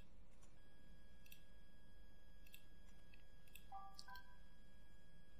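A few faint computer mouse clicks over a faint steady electrical hum.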